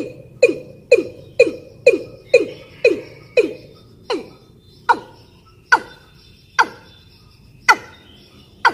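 Watercock lure call, presented as a female in breeding condition calling males: a series of short, sharply falling notes. They come about two a second at first, then about four seconds in they slow to roughly one a second and sit higher in pitch.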